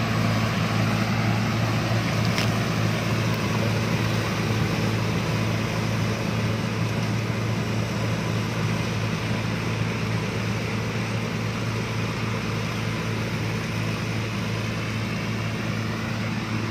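Rice combine harvester running steadily: a low, even engine drone with a haze of machinery noise above it, slowly getting a little quieter.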